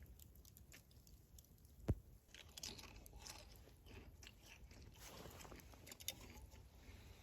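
Faint crunching and clicking, with one sharp knock about two seconds in and a smaller click near the end.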